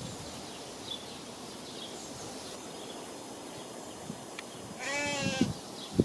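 A goat bleats once, briefly and with a wavering, quavering tone, about five seconds in.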